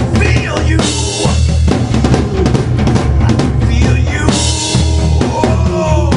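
Heavy metal band playing at full volume: electric guitars and bass under a pounding drum kit, with cymbal crashes about a second in and again past four seconds. A male lead vocal sings over it.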